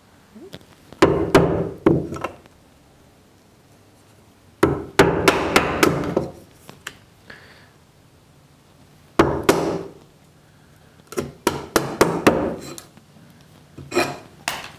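Wooden mallet driving a bench chisel to chop out a notch in a softwood chair leg between sawn relief cuts: groups of sharp blows, with wood fibres crunching as the waste splits away, coming about five times with short pauses between.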